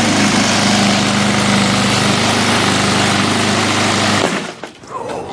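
Honda walk-behind lawnmower engine running steadily at full throttle, cutting off abruptly about four seconds in.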